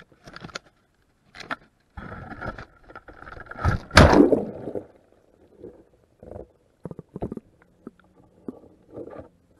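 Underwater action camera on a crab trap going into seawater: splashing and a rush of bubbles, loudest about four seconds in. After that come scattered short knocks and clicks picked up underwater.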